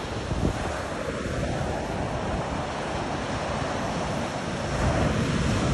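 Ocean surf breaking and washing up a sandy beach, a steady rushing wash, with wind buffeting the microphone in low rumbling gusts.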